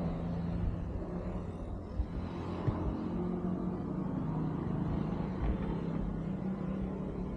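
Kawasaki ZX-25R's 250 cc inline-four engine running steadily through an Austin Racing aftermarket exhaust, its note holding at a fairly even pitch with a low rumble beneath.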